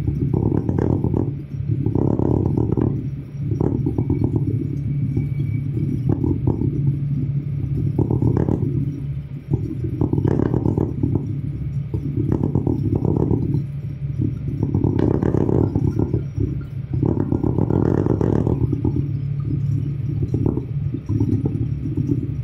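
New Holland TL90 tractor's diesel engine running steadily at road speed, heard inside the cab. Over it comes a loud, irregular rattling and buzzing that swells every second or two, from the camera being too close to the windshield.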